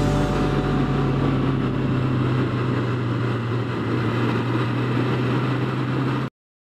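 Sport motorcycle running at a steady cruise, a low, even engine hum under a rush of wind and road noise. It cuts off abruptly near the end.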